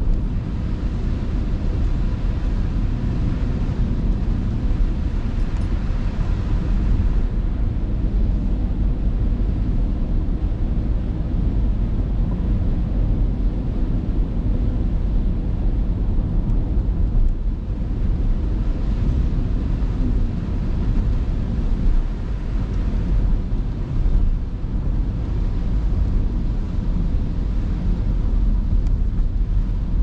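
Steady in-cabin road noise of a car driving on a wet road in rain: low rumble of the engine and the tyres on the wet pavement.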